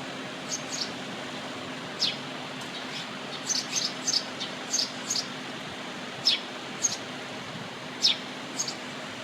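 Red-rumped swallows giving short, sharp high calls that drop in pitch, about a dozen scattered irregularly, some in quick pairs, over a steady even hiss.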